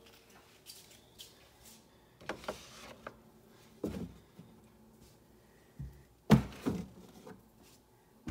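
Handling noises in a small room: a few light knocks and clicks, then a louder thump about six seconds in followed by a smaller one.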